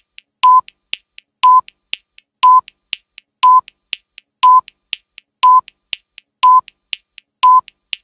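Countdown timer sound effect: a short beep once every second, eight in all, with fainter ticks between the beeps.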